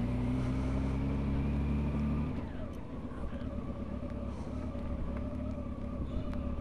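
Honda Gold Wing touring motorcycle engine running at low road speed; about two seconds in the throttle closes, the engine note drops and quietens, and the engine carries on at a low, rough running speed as the bike rolls slowly.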